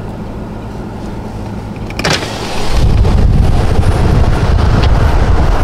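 Slow-moving car heard from the cabin: a steady low hum with a sharp knock about two seconds in. From about three seconds in, a much louder low rumble of wind buffeting the microphone at the open side window.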